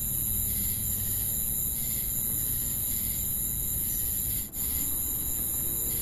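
Chorus of night insects: a steady high-pitched trill with a pulsing chirp about once a second, over a low rumble of soft wind. The sound dips briefly about four and a half seconds in.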